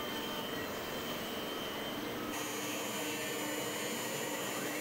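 Stepcraft Q.408 CNC router's spindle running at 18,000 RPM while a 60-degree carbide V-bit cuts a chamfer in MDF: a steady whine over an even hiss. The pitch of the whine shifts about halfway through.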